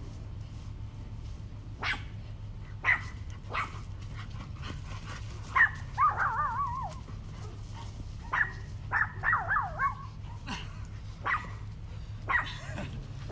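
German Shepherd barking in short single barks while playing, with two runs of wavering, whiny yelps about six seconds in and again near ten seconds.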